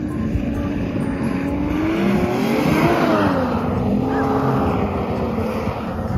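A motor vehicle engine passes close by. Its pitch and loudness rise to a peak about three seconds in, then fall away as it moves off.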